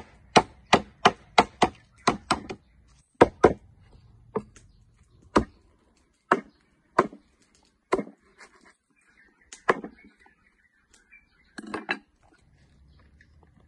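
Cleaver chopping lemongrass stalks on a thick wooden chopping block: quick sharp chops at first, about three a second, then slower single chops about a second apart, with a short flurry near the end.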